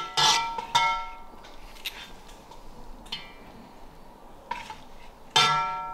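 A serving spoon knocking and scraping against an enamelled cast-iron pot and a glass baking dish while minced lamb is scooped out and spread. There are sharp clinks, each ringing briefly: two come close together near the start, the loudest comes near the end, and fainter taps fall between.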